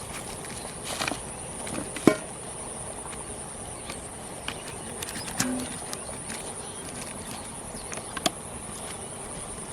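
Insects drone steadily at a high pitch in the open air, broken by a few short knocks or sloshes. The loudest comes about two seconds in, and a sharp click follows near the end.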